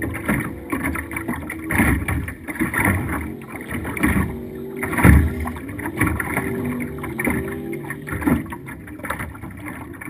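Race boat's 4.2-litre engine running hard at speed, its pitch wavering, with heavy thumps of the hull slapping over the chop, the loudest about halfway through, and wind rush over the deck; the sound eases off near the end.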